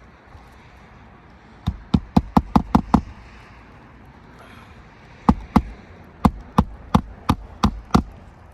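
Hammer driving roofing nails into asphalt shingles: a quick run of about six sharp blows, then after a pause about eight more.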